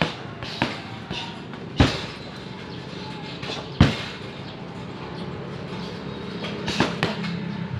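Gloved punches and a shin kick landing on hanging leather heavy bags: a handful of sharp smacks with gaps between them. The loudest two come about two and four seconds in, the second a roundhouse kick into the teardrop bag. A low steady hum grows in the background over the last few seconds.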